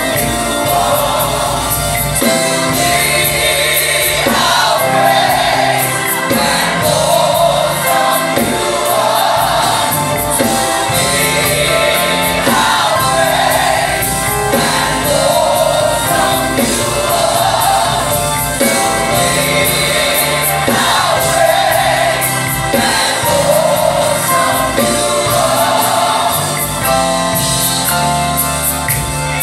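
Gospel choir singing in phrases that rise and fall, over a band with steady bass notes and cymbals.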